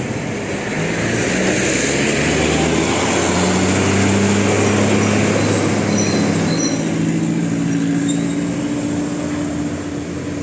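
A large bus passing close by with its engine running, a steady rumble whose pitch steps up and down a little and is loudest about halfway through.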